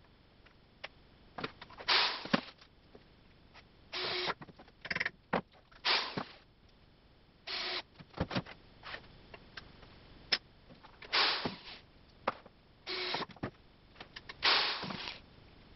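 Cordless drill driving screws into wood in short bursts, each lasting well under a second, about seven times, with small clicks and knocks from handling the brackets and screws in between.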